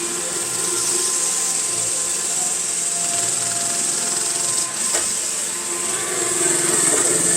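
iRobot Roomba i7 robot vacuum running steadily with its side brush removed: a high fan hiss over a low rumble, the noise the owner is trying to track down and which persists even without the side brush.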